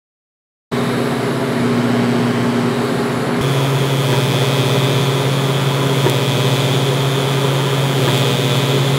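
TIG welding arc on carbon steel, run from a Lincoln TIG 175: a steady electric buzz with a constant low hum, starting under a second in. A higher hiss joins it about three and a half seconds in.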